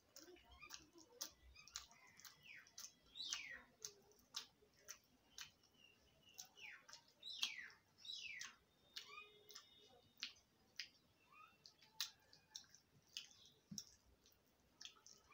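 Faint eating sounds: sharp mouth clicks and smacks of someone chewing khichdi eaten by hand. A bird's falling chirps come several times in the background.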